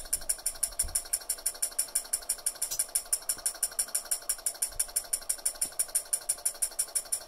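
DH48S-S 24 V twin timer relay cycling at its fastest setting, its contacts clicking rapidly and evenly, about eight clicks a second.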